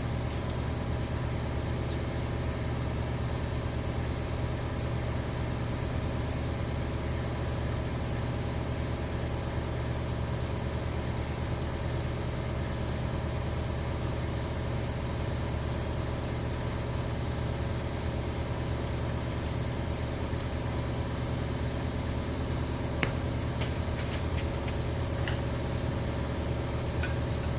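Steady low mechanical hum with an even high hiss over it, unchanging throughout, with a few faint clicks near the end.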